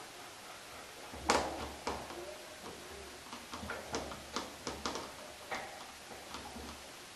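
Wire cage mesh clicking and rattling as kittens climb and claw at it: a run of irregular sharp clicks, the loudest about a second in.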